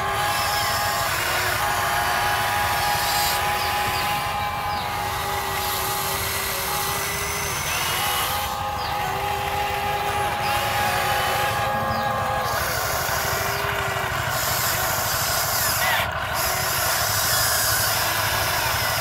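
Huina 580 radio-controlled hydraulic excavator's electric hydraulic pump whining steadily over a dense mechanical hiss. Its tone steps and slides in pitch as the boom, arm and bucket are worked.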